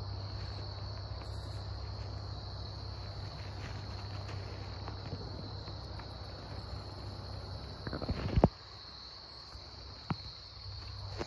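A steady high-pitched insect trill runs over a low outdoor rumble. A loud clattering knock comes about eight seconds in, and a short click about two seconds later.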